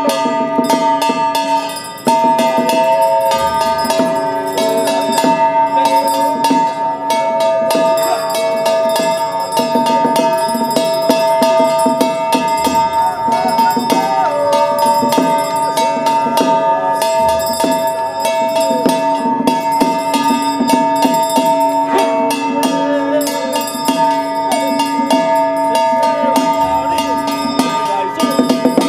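Taoist ritual music. A hand bell rings rapidly over percussion, two steadily held tones and a lower melody that moves in pitch.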